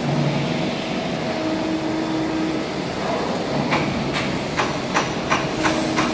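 Servo CNC press brake running with a steady hum, a short steady whine twice, and an irregular run of sharp clicks starting a little past halfway.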